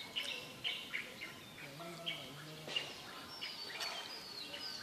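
Several birds chirping: many short chirps and whistled notes, some falling in pitch, overlapping throughout.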